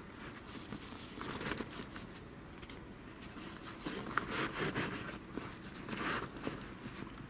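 Fabric magnetic tissue box holder rubbing and scraping against the car's fabric roof headliner as it is moved about, with the tissues rustling. There are a few louder scrapes, about a second in, around four seconds in and near six seconds.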